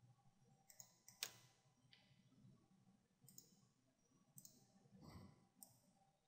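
Faint clicks of a computer mouse and keyboard, about half a dozen spread through near silence, with a soft thump near the end.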